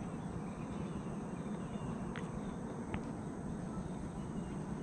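Outdoor pond ambience: a steady low rumble on the microphone under a faint, steady high insect hum, with two faint clicks about two and three seconds in.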